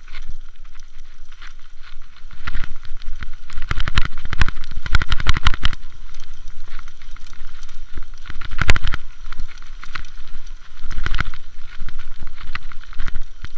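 Mountain bike rattling and knocking over rough grassy ground, heard through a handlebar-mounted camera; a dense run of jolts from about four to six seconds in, with harder single knocks near nine and eleven seconds.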